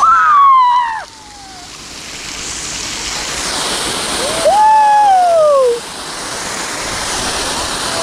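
Fountain jet shooting water up and splashing back into the pond: a steady rushing hiss that builds over the first few seconds. Two long, falling cries from a voice rise over it, one at the start and one about halfway through.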